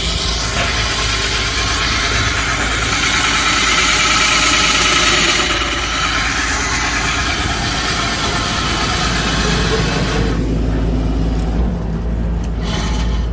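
Excavator engine running under load while an excavator-mounted core drill bores into rock: a loud, steady, hissing grind over the engine's low hum. About ten seconds in the grinding drops away, leaving the engine running.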